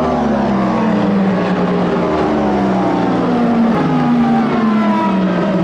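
Several endurance race cars' engines running hard as they pass in close succession, each engine note sliding down in pitch.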